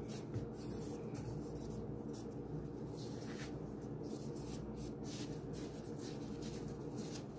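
Soft, irregular rubbing and swishing of plastic-gloved hands rolling a strip of soft bread dough into a spiral on a counter, over a steady low hum.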